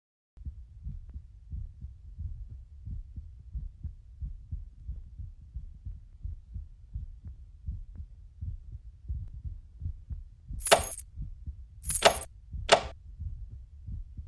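Low, irregular thumping rumble of movement and handling against the microphone, several soft thumps a second. Near the end come three sharp, loud noises, each well under half a second long.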